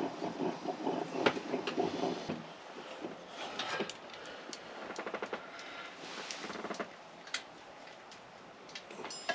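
Close-up eating and handling noises: a fork clicking and scraping on a plate, then a thermos being picked up and set back down, with short runs of rattling clicks.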